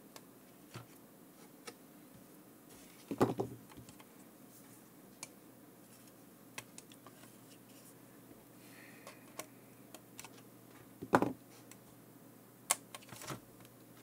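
Small hand tools clicking and tapping at a workbench during fine soldering on a circuit board: irregular light clicks, with two louder knocks about three seconds in and about eleven seconds in, and a few more near the end.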